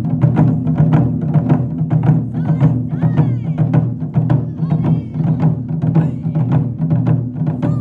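Japanese taiko drums beaten in a fast, dense rhythm, deep booming strokes with sharp strikes between, starting suddenly.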